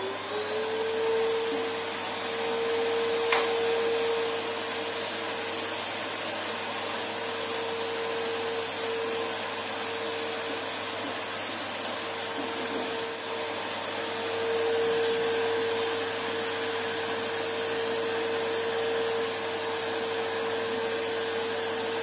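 Black+Decker VM1680 bagless canister vacuum cleaner, a 1400-watt machine, just switched on. It reaches full speed in the first second, then runs steadily with a high whine over the rush of air.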